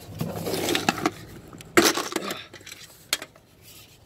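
Plastic poker chips clinking and a plastic bag rustling as they are handled, with a sharp knock a little under two seconds in and a lighter click about a second later.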